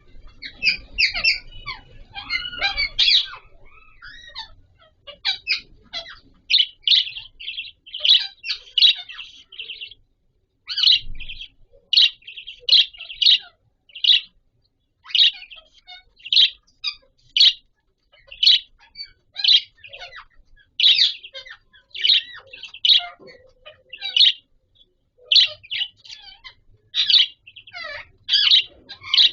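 Budgerigars chirping: short, high chirps repeating about once or twice a second, more jumbled and overlapping in the first few seconds.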